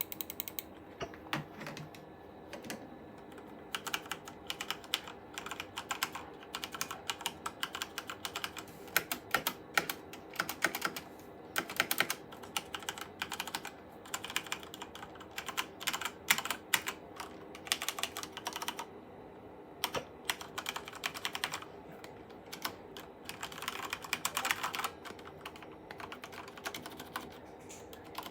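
Corsair K70 Mk2 mechanical keyboard with Cherry MX Red linear switches being typed on, in fast runs of keystrokes broken by a few short pauses.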